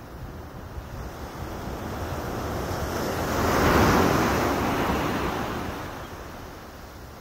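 Small ocean waves breaking and washing up a sandy beach. One wave's wash swells to its loudest about halfway through, then fades away.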